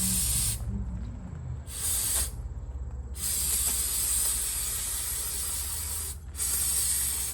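Aerosol spray can hissing in four bursts, the longest about three seconds, over a steady low hum.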